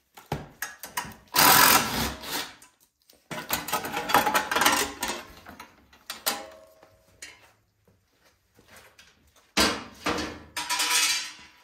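Hand tools working loose a snow blower engine's heat shield: three bursts of rapid clicking and rattling, about a second in, around four seconds in, and near the end, with quieter metal handling between them.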